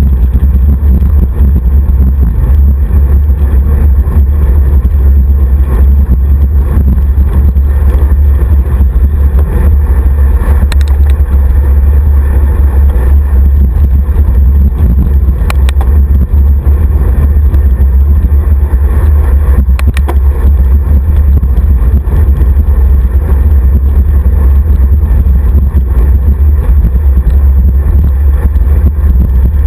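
Wind buffeting the microphone of a camera on a road bike riding fast in a group: a loud, steady low rumble, with a few faint clicks.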